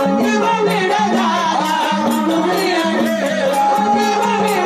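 Live Marathi devotional folk song to Khandoba: a man singing through a microphone over drum and jingling rattle-like percussion, steady and continuous.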